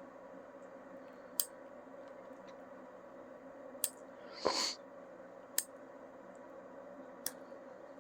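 Human fingernail clippers snipping a young puppy's nail tips: four sharp, separate clicks a couple of seconds apart, with a brief breathy noise near the middle.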